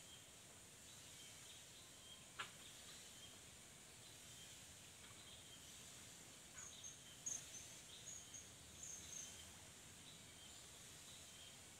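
Faint lakeside ambience: a steady high insect hiss with small bird chirps repeating throughout. There is one sharp click about two and a half seconds in, and a quick run of high bird chirps from about six and a half to nine seconds in.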